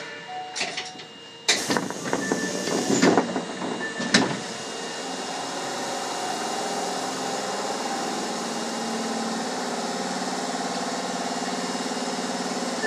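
Subway train at departure: a heavy thud about a second and a half in, as the doors shut, and a couple of sharp clunks. Then a steady hum of motors and wheels as the train gets under way.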